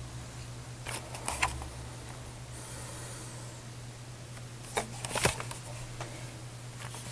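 Clicks and rustles of a handheld camcorder being handled, in two short clusters about a second in and about five seconds in, over a steady low hum.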